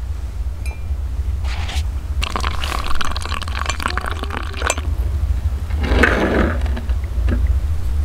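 Water running from a brass samovar's tap into a glass mug for about two and a half seconds, then a metal spoon stirring and clinking against the glass about six seconds in.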